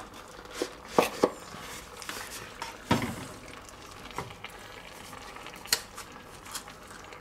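Wooden spatula stirring and scraping in an enamelled pot and scraping out a sauce carton, with a handful of sharp knocks of the spatula against the pot, over the low sizzle of the onions and mushrooms simmering in it.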